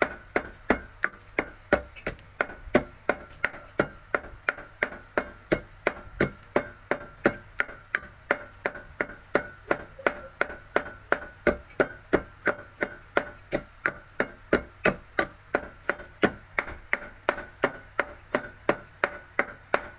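Wooden pestle pounding papaya salad in an earthenware Thai mortar (krok), with steady, even strokes about three a second.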